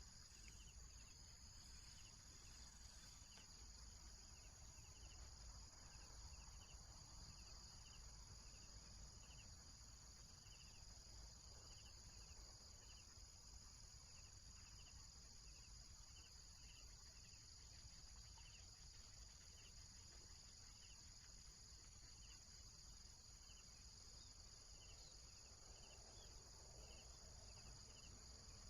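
Faint insects: a steady high-pitched buzz with a cricket-like chirp repeating about once a second.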